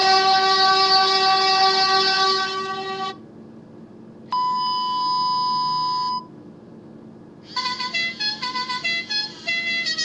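Air horn sounds from an Android phone app: a long blast whose pitch rises at its start, held until about three seconds in, then a shorter steady horn tone, then from about seven and a half seconds a rapid tune of short horn notes.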